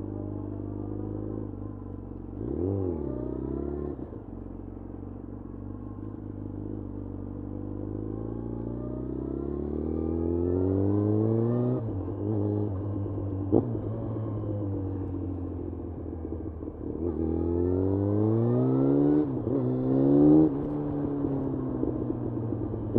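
2011 Yamaha FZ1's inline-four engine under way: a quick throttle blip a few seconds in, then revs climbing and dropping back at gear changes several times, and easing off near the end.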